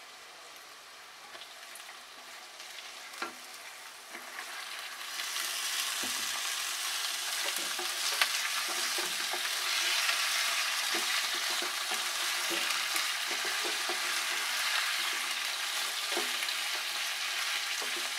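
Raw chicken pieces frying in hot oil with sautéed onions in a non-stick pan: a faint sizzle that swells to a loud, steady sizzle about five seconds in, as more chicken goes in. Scattered clicks and scrapes of a spatula stirring the pan.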